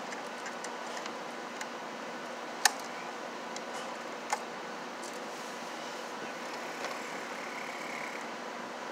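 Small sharp clicks and taps of a twist-lock receptacle, its wires and a screwdriver being handled at an electrical box, the sharpest about two and a half seconds in and another about four seconds in, over a steady background hum.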